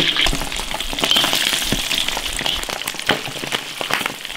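Braised beef rib pieces dropped into hot oil in a large iron wok, the oil sizzling hard with sharp crackling pops throughout as more pieces go in.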